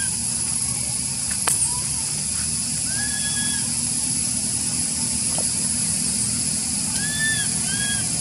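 A young macaque gives short, high, arched whistle-like coo calls: one at the start, one about three seconds in, and two in quick succession near the end. These are the begging whistles of a youngster calling for milk. A steady hiss and low rumble run underneath.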